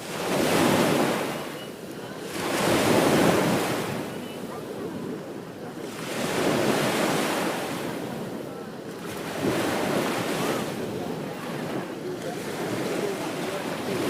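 Ocean waves breaking on a beach, surf surging in and drawing back in slow swells every few seconds, with wind on the microphone.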